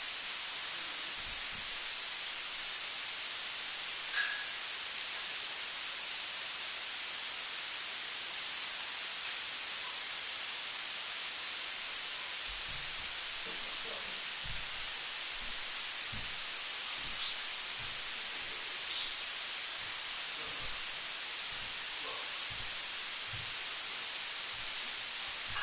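Steady electronic hiss, the recording's own static, with no words. A faint click comes about four seconds in, and soft low bumps from handling the camera run through the second half.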